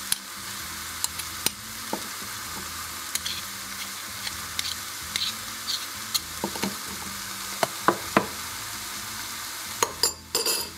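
Mushrooms and leek frying in coconut oil in a pan, a steady sizzle. Over it come scattered sharp clicks and short scrapes of a spoon against a glass blender container, with a louder cluster of knocks near the end.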